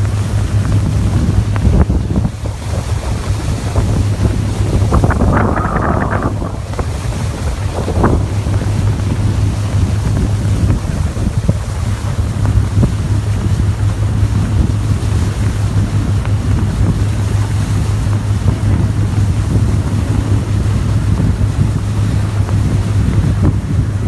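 Passenger speed boat under way: a steady low engine drone under the rush of water along the hull, with wind buffeting the microphone.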